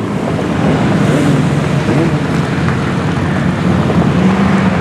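Motorcycle engines running steadily, with wind rushing on the microphone. The engine note swells briefly in pitch a couple of times.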